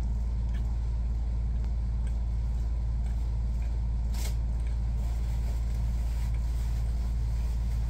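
Steady low hum with faint chewing of a cheesy wrap over it, and one short sharp noise about four seconds in.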